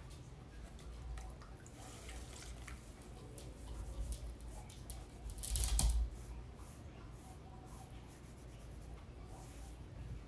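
Soft scrubbing and rubbing as a damp sponge pad works over wet paper on a canvas, lifting the soaked paper backing off a Mod Podge photo transfer. The strokes come unevenly, with the loudest scrub a little past the middle.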